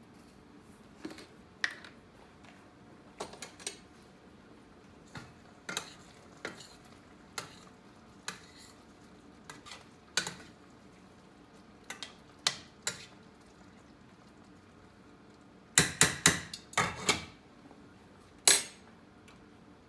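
Kitchenware clinking and knocking as chicken wings are seasoned in a pan: scattered sharp clicks and taps, with a quick run of louder knocks about three quarters of the way through and one more loud one shortly after.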